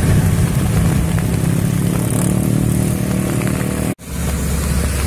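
Diesel truck-and-trailer rigs and motorbikes passing on a road, with a steady low engine rumble. It breaks off sharply about four seconds in and picks up again on another truck's engine.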